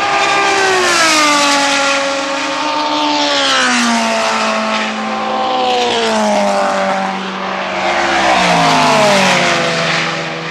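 Group C sports-prototype race cars going by at speed. The engine note drops in pitch several times as they pass, one after another.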